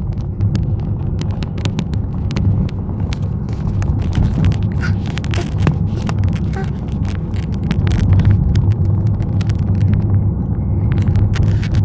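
A car being driven, with a steady low rumble of engine and road noise and many scattered sharp ticks throughout.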